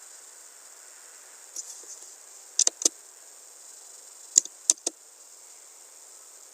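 Computer mouse clicking: a quick cluster of clicks about two and a half seconds in and another about two seconds later, over a steady high-pitched hiss.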